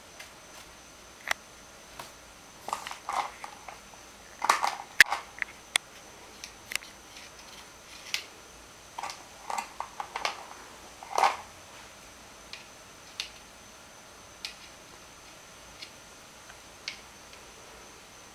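Light taps and clicks of a paintbrush against a plastic watercolour paint tray, paper and a plastic water cup, coming in small clusters. The loudest are about five seconds in and about eleven seconds in.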